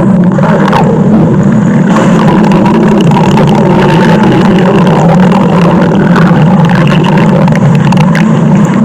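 Stomach-growl sound effect: a loud, steady, low gurgling rumble that runs on without a break.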